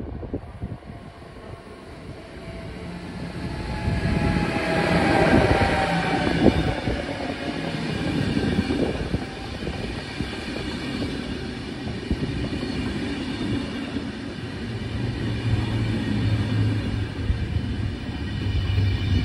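Locomotive-hauled DSB double-deck passenger train passing along a station platform. It grows louder as it approaches, with a falling whine as the locomotive goes by about five seconds in, followed by a steady rumble and clatter of the coaches' wheels on the rails.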